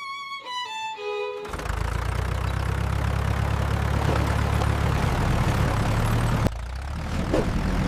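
A short run of musical notes stepping downward, then the steady low rumble of tractor engines running, which drops in level about six and a half seconds in.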